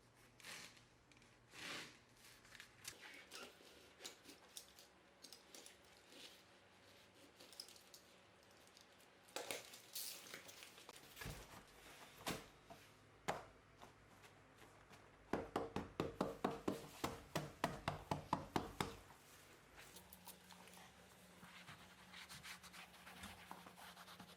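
Rubbing, scraping and cutting sounds of hands working on floor mats, with scattered clicks. About two-thirds of the way in comes a quick run of strokes, about six a second for some four seconds, the loudest part.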